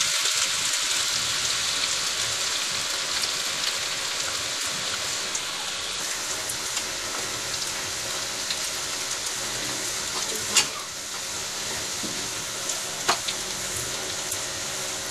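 Potato and gram-flour bhujiya strands deep-frying in hot oil, a steady sizzle that is loudest at the start and eases a little, while they are stirred with a spatula. Two sharp clicks, the louder about ten seconds in.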